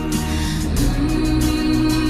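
Background music with a steady beat and a sustained melody line.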